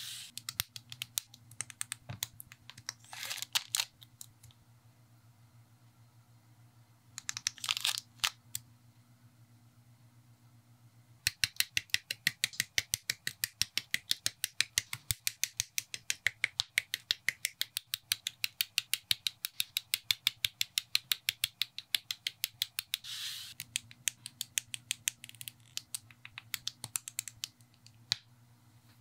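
Plastic model-kit parts being snipped from the sprue with side cutters and clicked together, heard as quick, evenly spaced sharp clicks, about four a second, through most of the second half. A few short rustling bursts come about 3, 7 and 23 seconds in, over a steady low hum.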